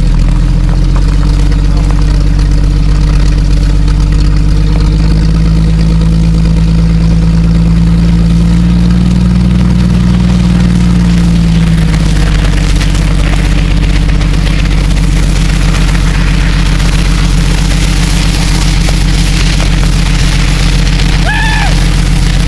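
Jeep engine running steadily while towing at low speed. Its note climbs slowly and then drops about twelve seconds in, after which a hiss from the moving vehicle grows louder.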